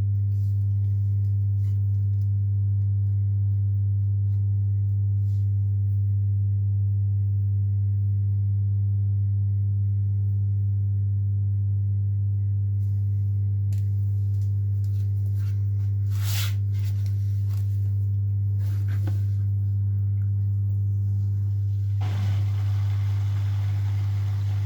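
Zanker EFX 4875 front-loading washing machine at the start of its final spin program: a steady low hum. A brief click comes about two-thirds of the way through, and a broader mechanical running noise comes in near the end.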